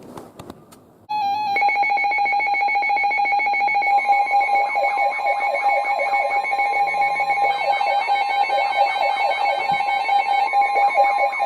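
Several NOAA weather radio receivers sounding their alert alarms at once as a severe thunderstorm warning comes in. A rapid electronic beeping starts about a second in, joined a few seconds later by repeating falling sweeps and a second steady tone.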